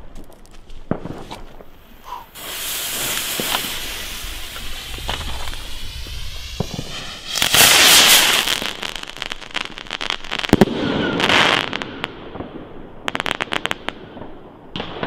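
Funke cracker-tail rockets fired together: a rushing hiss of rocket motors starts about two seconds in, and the loudest lift-off comes about halfway through. Quick bursts of sharp crackling from the cracker tails follow toward the end.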